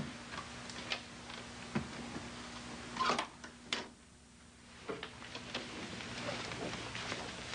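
Scattered light clicks and knocks over a faint steady hum, the loudest two about three seconds in, with a brief drop to near quiet around four seconds.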